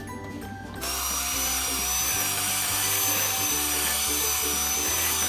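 Home Line electric hand mixer switching on about a second in, then running steadily with a high motor whine as its beaters churn thick cheesecake batter of cream cheese, eggs and yogurt.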